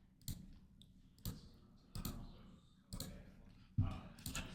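Computer mouse clicking, sharp single clicks at about one a second, six in all.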